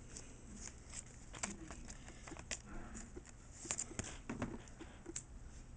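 Faint scattered clicks, taps and light rustles of Pokémon trading cards being handled and shuffled through.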